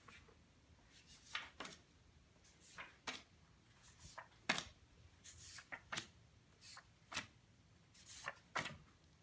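Paper tarot cards being handled and dealt onto a wooden table: faint, irregular swishes and light slaps of paper, a dozen or so short ones.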